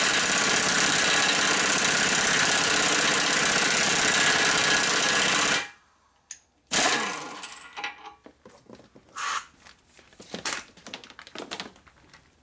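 Impact wrench running steadily for nearly six seconds as it drives a nut tight on a Harley panhead bottom end, then stopping suddenly. Two shorter blips of the wrench follow, about a second later and near nine seconds in, along with the clatter of tools being handled.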